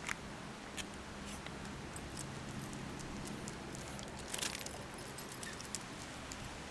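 Scattered light clicks with a short jingle about four and a half seconds in, typical of a dog's metal collar tag as a Shiba Inu walks up close. A faint low steady hum runs underneath.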